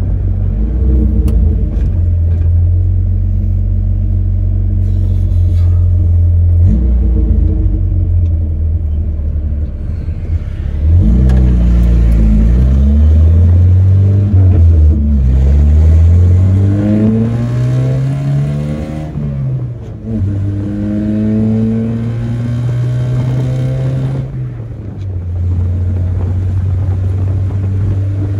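Chevrolet S10 pickup's stock four-cylinder engine driven hard through a manual gearbox. A steady drone for the first ten seconds, then from about eleven seconds in the engine note climbs, falls back at a gear change, climbs again, drops at another shift about twenty seconds in, and settles to a steady drone for the last few seconds.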